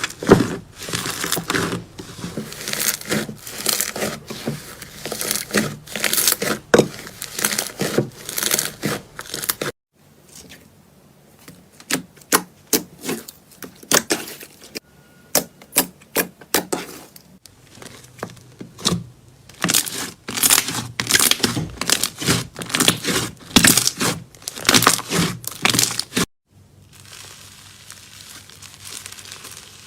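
Slime being squeezed and pulled, giving dense runs of sharp crackles and pops. The sound cuts out abruptly about ten seconds in and again near the end, and the last few seconds are a quieter, steadier crackle.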